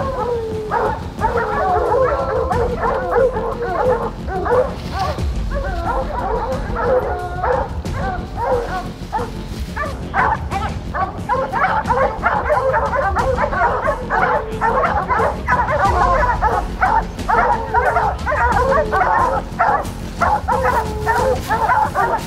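A pack of hounds barking and bawling steadily, many voices overlapping, as they hold a black bear bayed on the ground.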